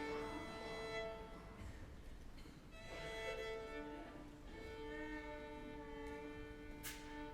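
Violin playing slow, long-held notes, with a single short cough from the audience near the end.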